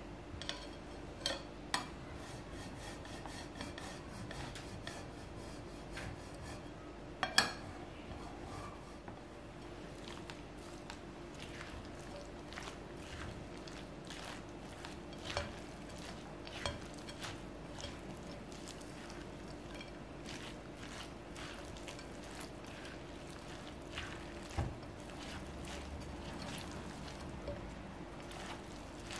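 Cheese being rubbed over a flat hand grater above a glass bowl, then a silicone spatula stirring and scraping a pasta, zucchini and egg mixture around the glass bowl: a steady run of small scrapes and clicks, with a sharp knock about seven seconds in. A faint steady hum lies underneath.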